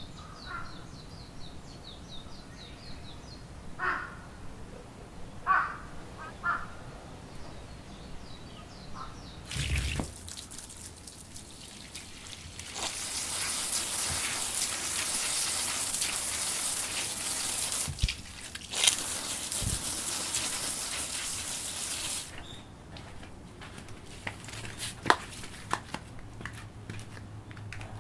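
Water spraying from a garden hose. It starts about a third of the way in, runs strongly for about ten seconds and stops abruptly. Before it, birds chirp and call.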